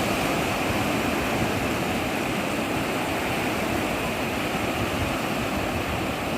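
Sea surf washing steadily onto a beach, a continuous rushing hiss with a low rumble underneath.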